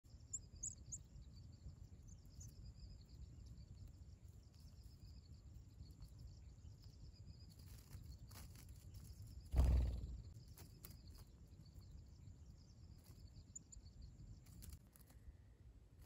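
Outdoor field ambience: a steady low rumble and a faint high drone, with a few short high chirps near the start. A single loud low thump comes just before the middle.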